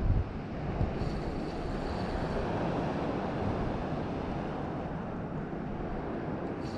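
Sea waves washing and breaking with wind buffeting the microphone, a steady rushing noise. A brief low bump on the microphone right at the start.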